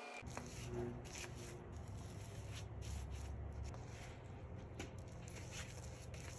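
A bristle paintbrush stroking sealer onto a carved cedar surface: soft, irregular brushing and rubbing strokes over a low steady hum.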